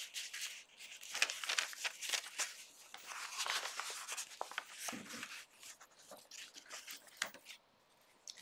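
Paper pages of a handmade junk journal rustling and crinkling as they are turned and handled: a run of short, crisp paper rustles that dies away shortly before the end.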